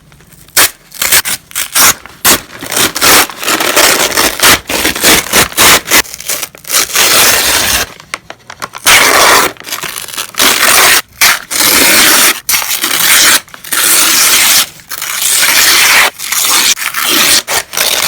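Paper being torn by hand, a run of crisp rips, some short and some drawn out over a second or more, with brief pauses between them.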